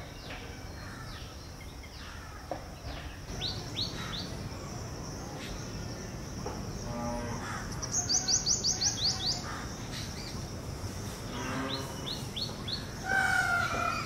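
Male purple sunbird calling in runs of quick, high, falling notes, a fast run of about eight a little past the middle and shorter runs before and after. A steady high insect buzz runs behind it.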